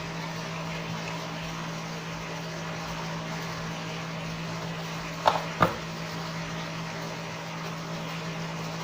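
A steady low electrical hum, with two short light clicks about five and a half seconds in.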